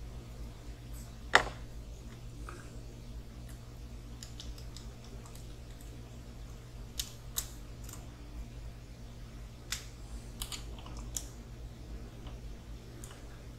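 Scattered light clicks and taps of small RC kit parts being handled and fitted, with one sharper click about a second in. A steady low hum runs underneath.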